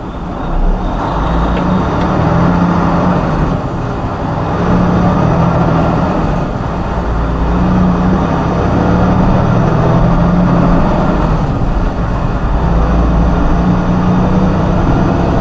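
Truck's diesel engine and road noise heard from inside the cab while driving, getting louder about a second in, with a couple of brief dips in the engine note.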